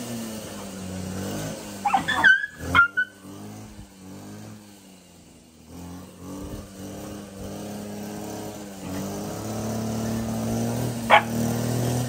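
Dogs barking and yelping in a quick flurry about two seconds in, then one more short yelp near the end, over a steady low drone.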